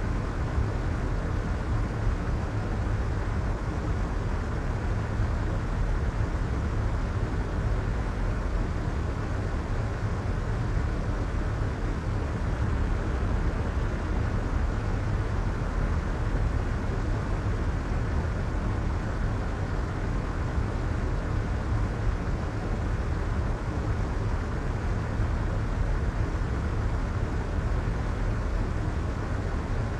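Soft white noise: a steady, even rush with no changes, heavy and deep at the bottom with its high hiss rolled off.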